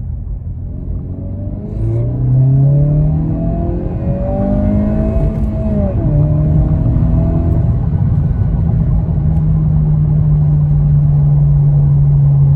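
2022 Honda Civic Si's 1.5-litre turbocharged four-cylinder accelerating hard on the stock tune: the revs climb for several seconds, drop sharply at an upshift about six seconds in, then pull and rise slowly again in the next gear.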